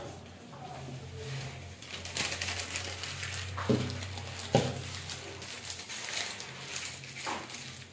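Scissors cutting stiff brown pattern paper, with the paper crinkling and rustling as it is handled, and two sharp clicks near the middle.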